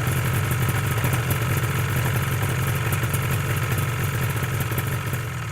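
Motorcycle engine idling steadily while the bike stands still, with an even, unchanging beat.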